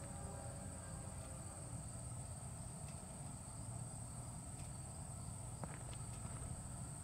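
A steady, high-pitched chorus of insects singing, with a low rumble underneath.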